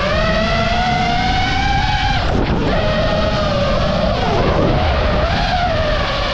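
FPV racing quadcopter's brushless motors whining as heard from the GoPro mounted on the drone, the pitch rising and falling with the throttle. The pitch drops sharply about two and a half seconds in and again around four and a half seconds, as the throttle is chopped, with a rush of wind noise underneath.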